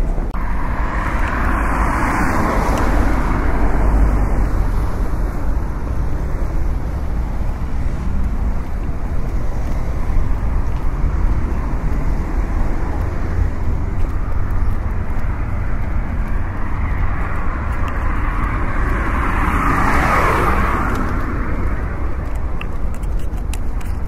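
Road traffic: a steady low rumble with cars passing by, one soon after the start and another about twenty seconds in whose pitch falls as it goes past.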